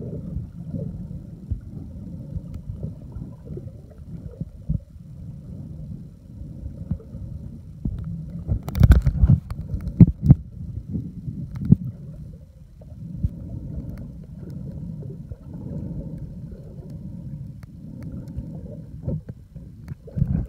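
Water heard from underwater: a steady, muffled low rumble and sloshing as water moves around the submerged microphone, with a few sharp knocks about halfway through.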